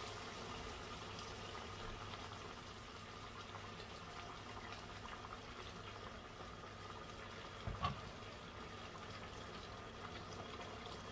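Faint, steady simmering of pork adobo in a cast-iron pot on the stove, with a dull knock about eight seconds in.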